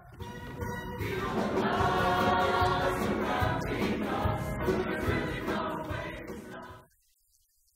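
A mixed-voice high school show choir singing a number together. It builds over the first second, stays loud and full, and cuts off abruptly about seven seconds in.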